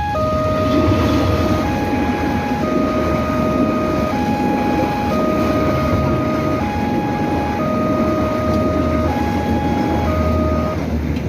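Railway level-crossing warning alarm sounding a repeating two-tone signal: a lower tone held about a second and a half, then a higher tone for about a second, over and over. Under it runs the steady heavy rumble of a train passing the crossing.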